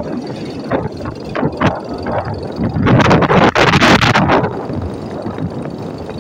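Steady rush of wind and road noise from a vehicle on the move, with a loud rushing burst about three seconds in that lasts about a second and a half.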